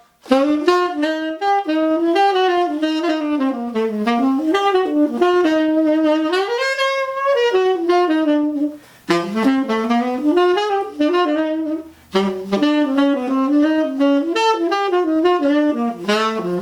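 Solo saxophone playing a fast jazz line of many short notes, in three phrases with brief breaks about nine and twelve seconds in.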